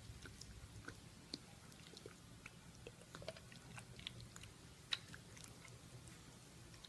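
Faint wet squelching and small clicks of a bare hand mixing raw chicken pieces in marinade, irregular, with a sharper click about five seconds in.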